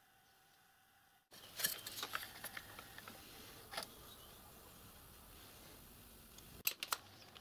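Faint room tone, then after about a second a scatter of light clicks and taps from hands handling a clear plastic pulley guard on a small lathe while marking it with a marker pen, with two sharp clicks near the end.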